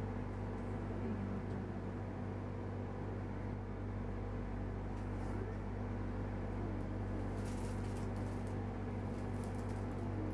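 A steady low mechanical hum, with a few faint ticks in the second half.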